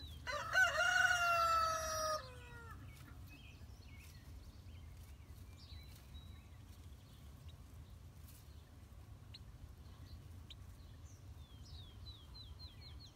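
A rooster crows once, about two seconds long, its pitch falling at the end. Afterwards turkey poults peep faintly in short high falling chirps, more often near the end.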